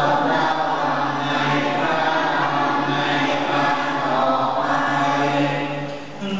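A large group of young Buddhist novice monks chanting the devotional service together in unison, many voices held on one steady low pitch. The chanting breaks off for a moment near the end, then picks up again.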